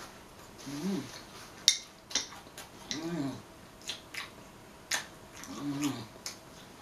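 A person eating, with sharp wet mouth clicks and smacks, humming three short rising-then-falling "mmm"s of enjoyment.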